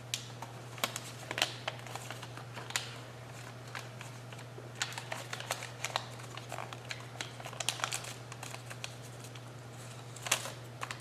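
A sheet of paper being folded and creased by hand for an origami bird base: scattered crinkles and crackles as the corners are pushed down and flattened, over a steady low hum.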